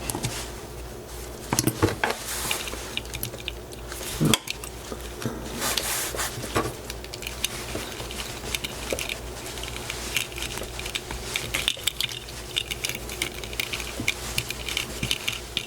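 A small hand tool scraping, clicking and slipping against the hard plastic case of a sealed key-fob authenticator as it is pried at the seam. There is one sharper click about four seconds in.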